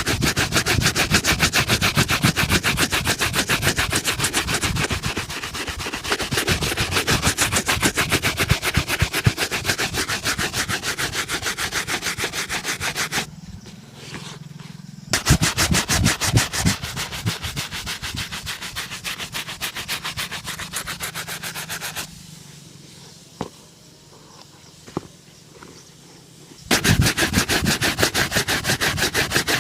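A leather shoe being buffed during a shoe shine, with fast back-and-forth rubbing strokes. The buffing stops twice, briefly about 13 seconds in and again for several seconds from about 22 seconds, leaving a low hum and a few light clicks before it resumes near the end.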